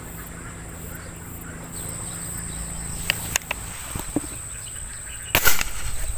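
Insects chirring steadily at a high pitch, a couple of sharp clicks, then a single loud, sharp air gun shot about five seconds in that hits a young snakehead (bulig) in the water.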